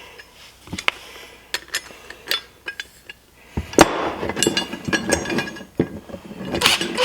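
Allen key clinking and clicking against a bolt and metal bracket while the bolt is tightened: sharp irregular metal clinks, getting busier and louder a little past halfway.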